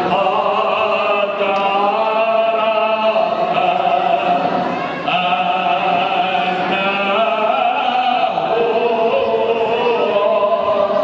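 Voices chanting Orthodox liturgical chant, long held notes stepping from pitch to pitch over a steady low drone.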